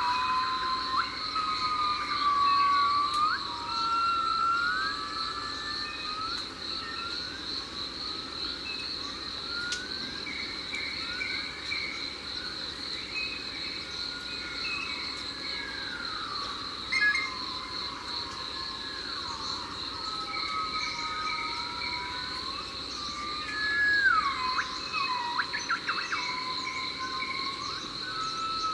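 Tropical jungle ambience: a continuous high insect drone, with birds calling over it in whistled notes that slide up and down in pitch, several voices overlapping.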